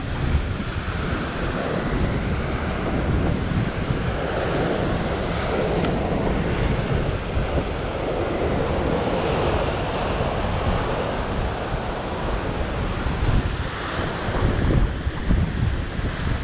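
Surf breaking and washing over low coastal rock ledges, with wind buffeting the microphone. The wash swells up through the middle and eases again.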